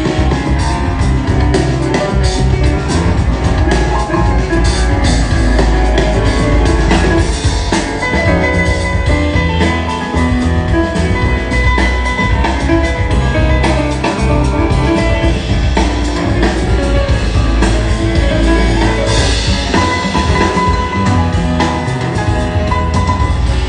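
Jazz piano trio playing an instrumental: drum kit, piano and a strong, steady bass line.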